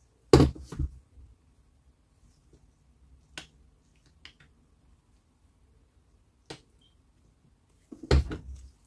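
Clicks and knocks of the opened Panasonic EY7441 cordless drill's plastic housing and parts being handled on a wooden tabletop. A loud cluster comes about half a second in, single clicks follow around three and a half, four and six and a half seconds, and another cluster comes near the end.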